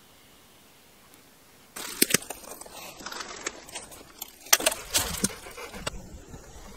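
Footsteps crunching on a forest floor of dry pine needles and twigs: irregular sharp crunches that start about two seconds in, after a faint hiss.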